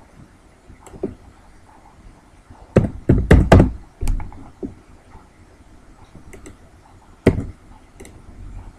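Computer keyboard keys struck hard while a number is typed in: a quick run of loud knocks about three seconds in, with a few lighter clicks before it and one more single knock near the end.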